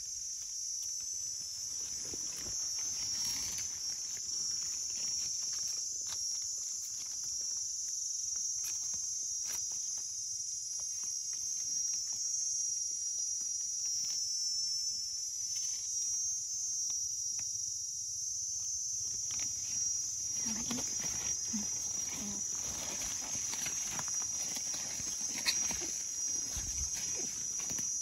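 Forest insects keeping up a steady, high-pitched drone. Over it come scattered rustles, clicks and scrapes of dry leaves and soil as mushrooms are dug out by hand with a knife, busier in the last third.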